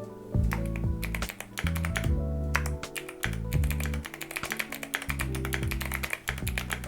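Mechanical keyboard being typed on, a quick, uneven run of key clicks, over background music with a steady bass line.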